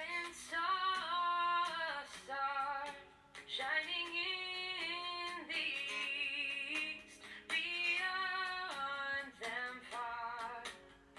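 A song with a woman singing in long, sustained phrases over a musical backing with light percussion.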